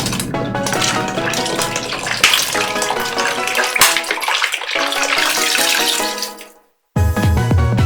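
Electronic background music over a rushing, water-like gush of fizzing soda. The sound fades out to a moment of silence about six and a half seconds in, then the music starts again.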